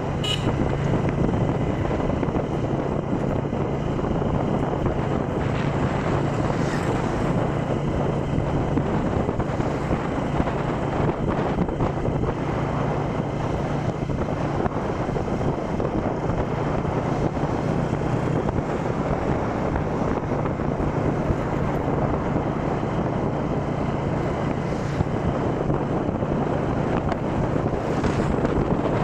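Wind rushing over a phone's microphone on a moving motorcycle, a steady dense noise with a low engine hum underneath.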